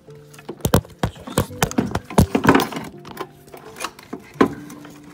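Hand tools and metal parts clinking and knocking irregularly, about a dozen sharp strikes with the loudest around two seconds in and again near the end, as the turbocharger is worked loose.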